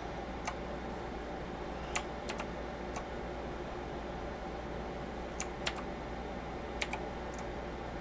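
EagleTec KG010 mechanical keyboard with clicky blue switches, keys pressed one at a time: about ten sharp clicks spread unevenly, over a steady low background hum.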